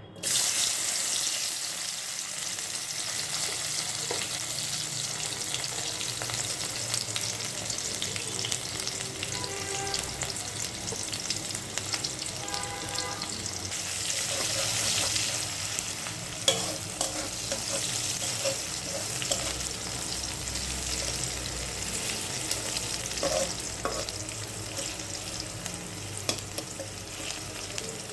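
Food sizzling as it fries in hot oil in a pan. The sizzling starts abruptly and stays steady, with scattered clicks and scrapes of a utensil stirring.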